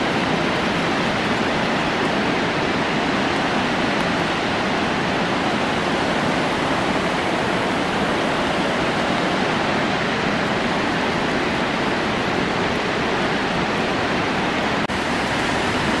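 The Chaudière River falls pouring in full flood: a steady, even roar of falling and churning water. It breaks off for an instant near the end.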